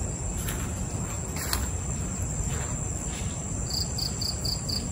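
Crickets chirping in the undergrowth at night, with a quick run of about six even high chirps near the end over a steady low background noise. A few faint soft knocks or steps are also heard.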